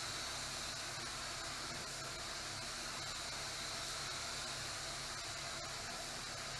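Compressed-air paint spray gun hissing steadily while spraying sealer onto the car's panel.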